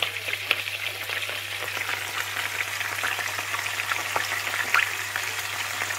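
Whole sardines frying in hot oil in a nonstick pan, the oil sizzling steadily with frequent small pops and crackles. The oil keeps sizzling while the fish is still raw; the cook's rule is that the fish is done when the sizzling stops.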